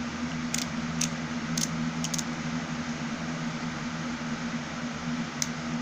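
A few light, sharp clicks from small hand tools being handled, over a steady low hum. The clicks come irregularly, several in the first couple of seconds and one more near the end.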